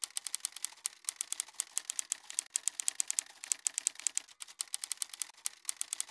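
Typing sound effect: quick runs of sharp typewriter-like key clicks, several a second, with a couple of brief pauses.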